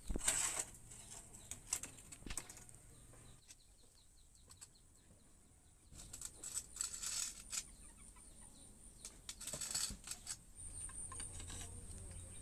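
A metal rod scraping and rattling against a steel pot of molten metal set in a charcoal forge, in irregular bursts of clicks and scrapes. A low hum sets in near the end.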